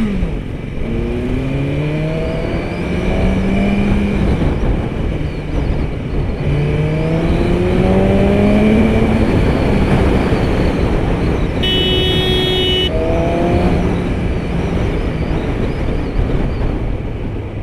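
A BMW superbike's inline-four engine pulling hard under acceleration: its pitch climbs in steps with the gear changes, twice, then again shortly after the middle. Wind rushes over the microphone throughout, and a vehicle horn sounds for about a second just past the middle.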